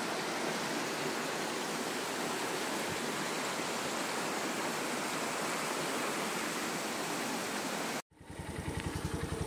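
Steady rush of a shallow, rocky mountain stream flowing over stones. About eight seconds in it cuts off abruptly, and a motorcycle engine idles with an even, pulsing beat.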